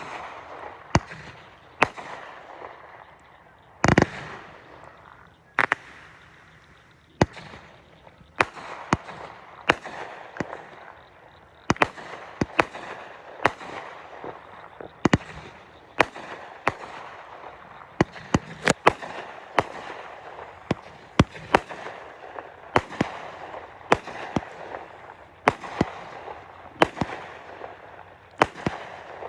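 Consumer fireworks going off: a string of sharp bangs about one a second, with crackling between them. There is a heavier boom about four seconds in.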